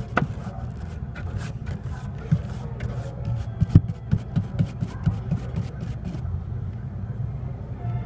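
A brush scratching across dirt-clogged evaporator coil fins in quick short strokes, with a few sharper knocks near the middle. The strokes stop about six seconds in, and a steady low hum runs underneath.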